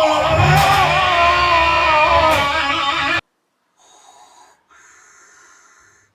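Loud electric guitar music with a lead line bending up and down in pitch, cutting off suddenly about three seconds in, followed by two short stretches of a faint steady hum.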